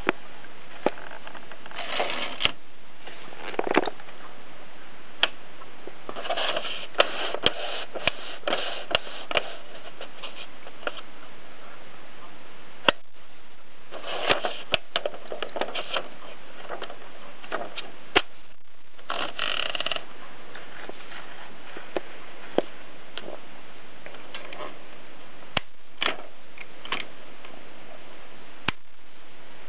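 1951 Bakelite Express portable typewriter being worked: scattered single key strikes and mechanical clicks, with a few short stretches of rattling mechanism noise, over a steady hiss.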